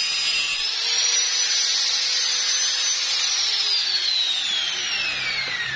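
Electric angle grinder cutting through a metal pipe: a high whine over a rasping, noisy cutting sound. The pitch rises slightly as the disc comes free of the cut, then falls in a long, steady glide from a little past halfway as the grinder is switched off and spins down.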